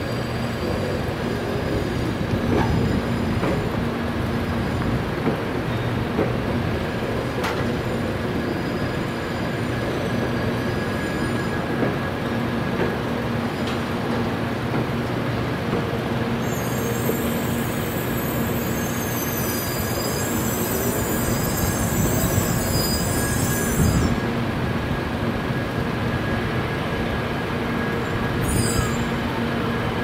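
Class 923 'Doctor Yellow' Shinkansen train rolling slowly over a level crossing: a steady rumble and hum from the cars, with wheel squeal on the rails that turns shrill from about halfway through and again near the end.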